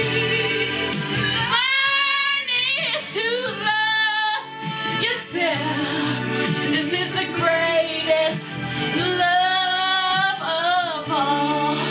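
A woman singing a ballad over musical accompaniment, holding long notes and sliding between pitches in runs.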